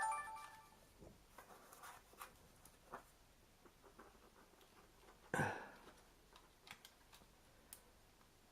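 Faint scattered clicks and taps of a small camcorder and its plastic accessories being handled, with one louder brief swish about five seconds in.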